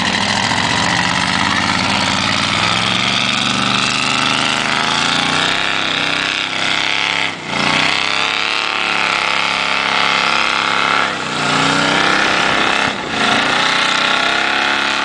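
Chevy big-block V8 in a Jeep running hard under load, its pitch rising and falling, with three brief dips in the second half where the revs drop away and come back.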